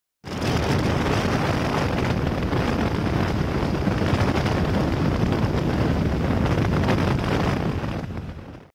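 Wind rushing over the microphone of a camera held out of a moving car's window, mixed with road noise. The rush is steady, cuts in just after the start and fades away near the end.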